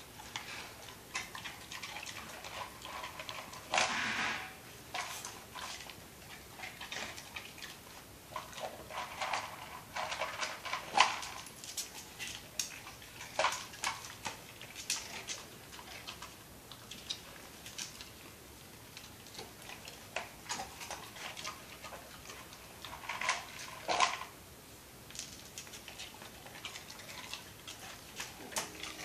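Irregular clicks, taps and clatter, louder in a few clusters: a plastic snack cup knocked about on a tile floor and a Doberman eating puffs off the floor.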